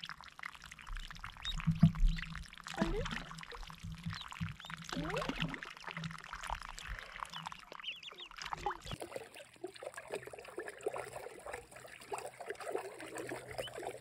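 Water splashing and dribbling as several ducklings paddle and bathe in a shallow plastic tub, with a few short duckling peeps.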